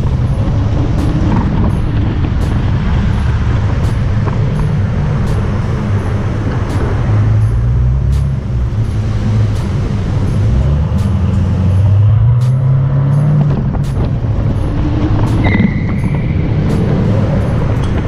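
Car engines and exhausts running as the cars cruise through a parking garage, a low drone whose pitch rises and falls as they speed up and ease off.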